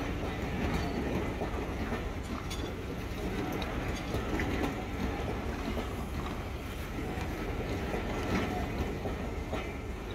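Diesel-hauled train on the move: a steady rumble with wheels clicking over the rail joints.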